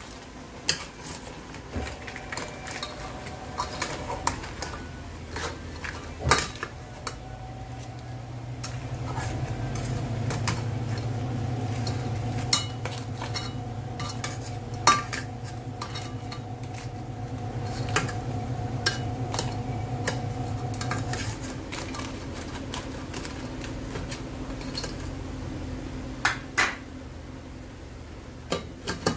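Metal ladle knocking, clinking and scraping against the side of a metal cooking pot as crabs and prawns are stirred and tossed in sauce. A steady hum runs under it from about a quarter of the way in until about two-thirds through.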